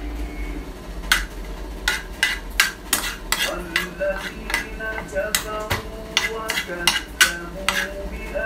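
A metal spoon stirring raisins fried in butter around a metal frying pan, with repeated irregular clinks and scrapes against the pan.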